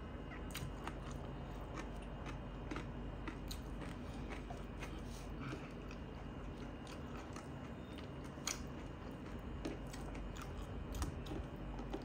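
Close-up chewing and mouth sounds of a person eating rice and curry by hand, with irregular short clicks and smacks, and fingers mixing rice on a steel plate.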